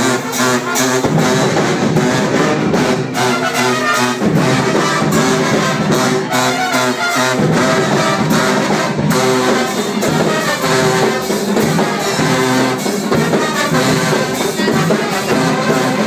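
Brass band with sousaphone and trombones playing a loud, continuous tune in a concrete parking garage.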